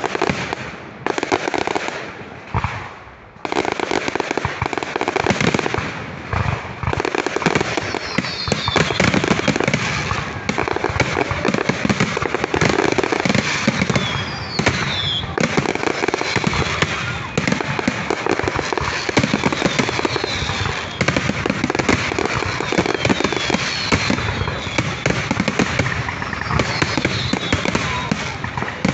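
A fireworks display going off in a dense, continuous barrage of rapid bangs and crackling, with a few falling whistles.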